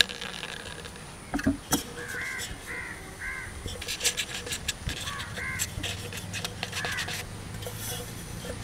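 Crows cawing in short runs, about four caws then a couple more a few seconds later. Under them, fingers rub oil over a paper lining in a steel pot, with a couple of sharp knocks against the pot about a second and a half in and scattered scraping clicks.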